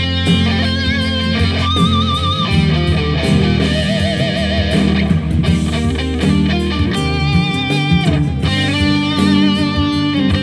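Electric guitar playing a lead melody, with wide vibrato on the held notes, over steady low notes.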